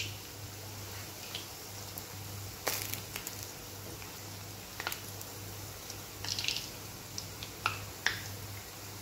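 Moong dal pakoras deep-frying in hot oil, a steady sizzle with a low hum underneath, broken by several sharp clicks of a metal slotted spoon knocking against the kadhai as the fritters are turned.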